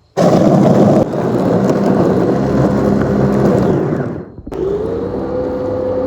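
An electric motor-driven machine switches on abruptly and runs with a steady hum and a noisy grinding. About four seconds in it winds down and cuts out briefly, then restarts, its pitch rising as it spins up before holding steady.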